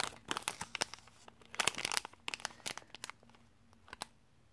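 Thin clear plastic packet crinkling as fingers open and handle it: a run of sharp crackles, densest in the first two seconds and thinning to a few scattered crackles toward the end.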